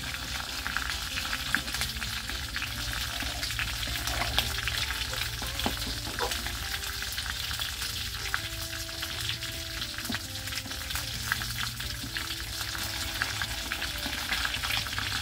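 Fish frying in hot oil in a steel wok, sizzling steadily, with many light clicks and scrapes of a spatula and chopsticks as the pieces are turned over.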